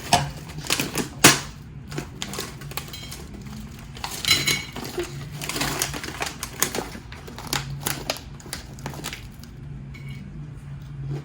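Goldfish crackers being chewed and handled close to the microphone: irregular crunches and crackly clicks, some sharp, over a low steady hum.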